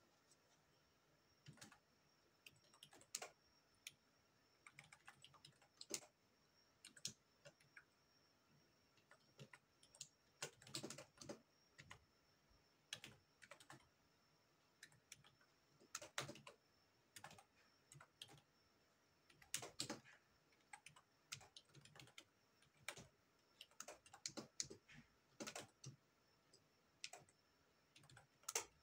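Computer keyboard being typed on, faint, irregular keystrokes in short flurries with pauses between, as a file name is entered.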